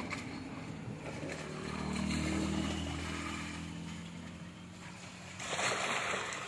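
A low engine hum of a passing motor vehicle swells and fades over a few seconds. Near the end comes a short splashing rush as muddy water is tipped out of a bucket.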